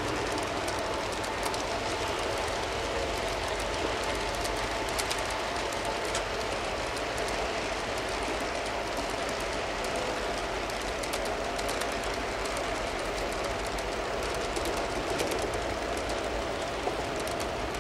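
G scale model freight train cars rolling past on garden-railroad track: a steady rolling noise of wheels on the rails, with scattered light clicks.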